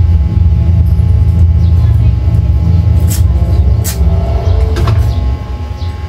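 JUKI industrial sewing machine running as it stitches fabric: a steady low hum that drops away a little after four seconds in. Two sharp clicks come shortly before it stops.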